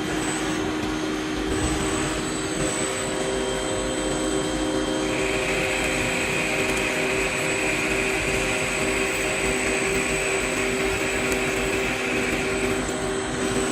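A machine tool running steadily, a hum and hiss with several steady tones. A higher, steady whine joins about five seconds in and stops shortly before the end.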